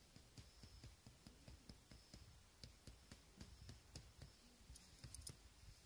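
Near silence, with faint scattered clicks and soft low thumps.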